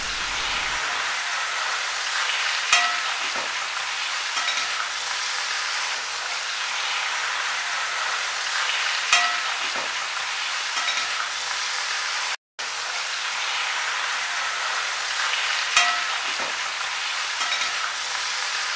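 Chicken and coconut slices sizzling in coconut oil in a brass uruli, a steady frying hiss, while a spatula stirs them. Three sharp knocks, the loudest sounds, come several seconds apart.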